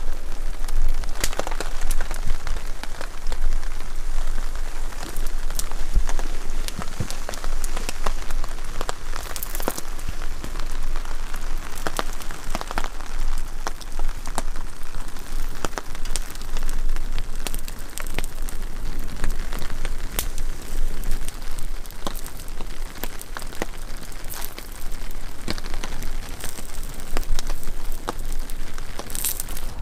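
Steady rain falling and pattering, with many sharp individual drop hits throughout.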